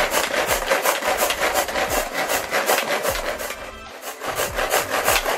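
Fresh ginger rasped back and forth on a hand grater in quick, regular scraping strokes, about three a second, easing off briefly before a last run that stops sharply.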